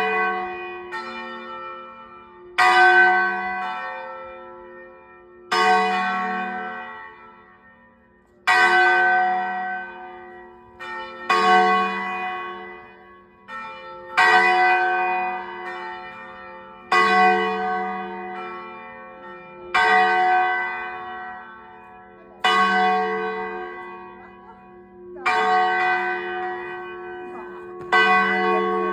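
Church tower bell ringing for noon, struck about every three seconds. Each stroke rings out with many overtones and fades slowly before the next, with a few fainter strokes in between.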